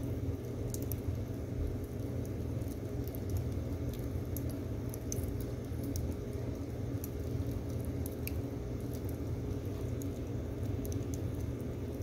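Firewood logs burning in a metal stove, with irregular sharp crackles and pops over a steady low rumble.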